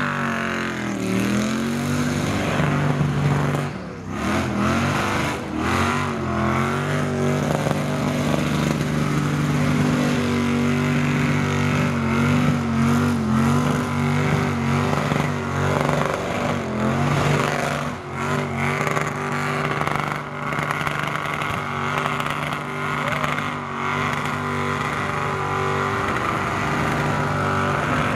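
Mazda burnout truck's big-block engine held high in the revs through a long burnout, its pitch wavering up and down over the noise of spinning tyres. The revs drop briefly about four seconds in, and again at around eighteen seconds.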